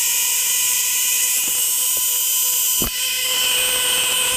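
Two aircraft igniter plugs sparking continuously off 12-volt continuous-spark ignition modules: a loud, steady, hissing buzz with a high whine in it. One short thump comes about three seconds in.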